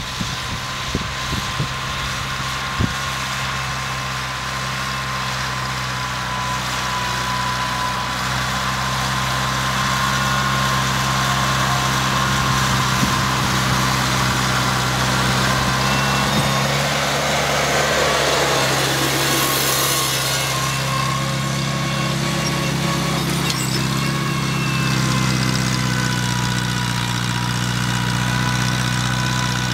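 Farmall Cub tractor's four-cylinder engine running steadily as it pulls a plow through the soil. It grows louder about ten seconds in as the tractor draws close and passes.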